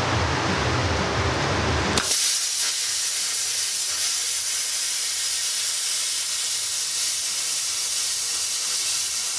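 A low rushing noise, then about two seconds in the Zeny Cut 50 plasma cutter's arc strikes with a sharp crack and runs with a steady, loud, high hiss as the torch cuts through metal plate.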